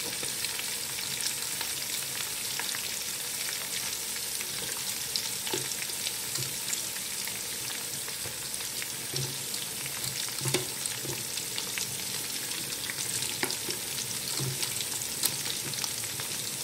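Chillies, onions and curry spices frying in hot oil in a pot: a steady sizzle with frequent small crackles and pops.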